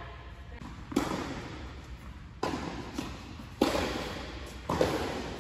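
Tennis ball pinging off racket strings and bouncing on the hard court in a rally: four sharp pops about a second apart, each echoing in a large indoor hall.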